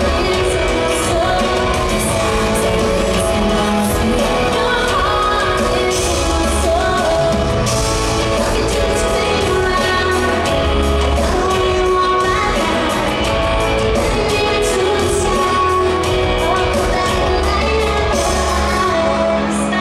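A female pop singer singing live with a full band over the arena sound system, heard from within the audience: a sung melody over a steady pulsing bass line and cymbals.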